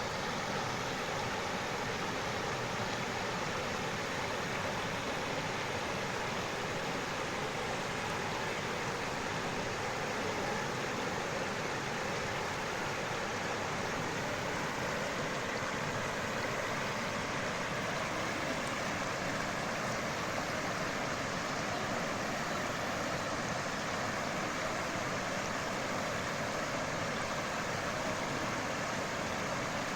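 Stream water flowing steadily, an even rushing noise that does not change.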